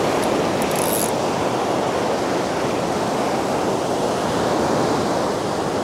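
Ocean surf washing in at the water's edge: a steady rush of breaking waves, easing slightly near the end.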